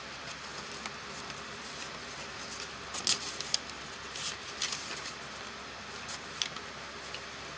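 Thin Bible pages being leafed through by hand: a few short, crisp rustles, the loudest cluster about three seconds in, over a steady low hiss.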